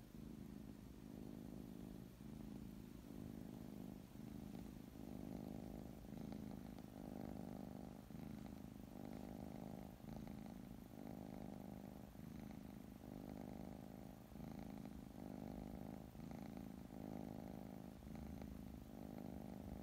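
A brown tabby cat purring, resting with its eyes closed; the purr rises and falls with each breath, about once every second or so.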